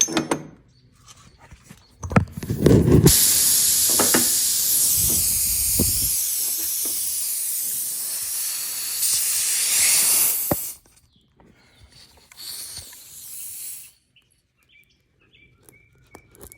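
Compressed air hissing out of a punctured car tyre through the reamed nail hole while a plug is worked in with the insertion tool. The loud, steady hiss follows a few rubbing knocks, cuts off suddenly, and comes back fainter for a couple of seconds.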